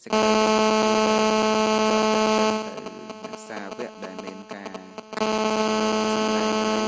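A loud, steady buzzing tone that holds one pitch for about two and a half seconds, breaks off, and then comes back for another two and a half seconds near the end. Fainter voices are heard in the gap between.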